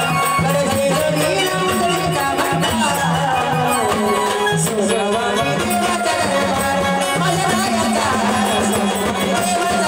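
Marathi jagaran-gondhal folk music: a melodic line with changing pitch over a steady low note, with drum and rattle strokes playing continuously.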